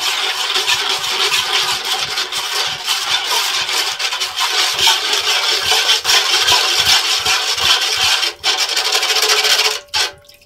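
A metal spoon stirring fast around a stainless steel bowl of oily liquid, scraping and rattling against the metal in steady strokes, about two to three a second. This is the wet mix of oil, sugar, salt and warm water for chapati dough. The stirring stops near the end.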